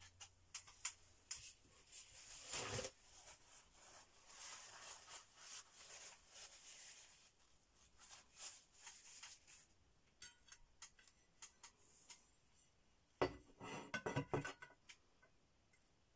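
Palette knife scraping and dabbing acrylic paint onto the painting, soft scrapes with light clicks. Near the end, a cluster of louder taps and scrapes as the knife works paint on the palette.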